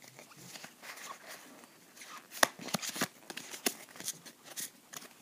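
Pokémon trading cards handled by hand, slid and flicked against one another in a string of light rustles and quick clicks that get busier after about two seconds, the sharpest snap about two and a half seconds in.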